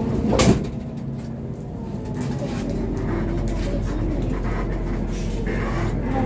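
Steady engine and road rumble inside a moving Hino RK8 coach, with one sharp knock about half a second in and scattered light rattles and clicks from the cabin.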